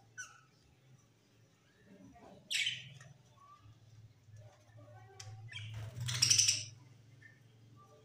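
Budgerigars chirping and calling, with a short chirp at the start, a loud squawk about two and a half seconds in, and a longer, louder burst of calls around six seconds in. A low steady hum runs underneath.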